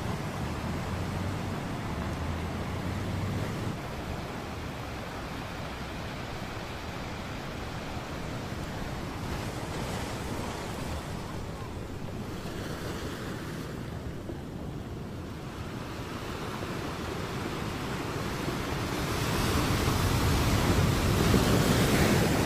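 Ocean surf washing onto a beach with wind on the microphone. The wind noise swells louder near the end.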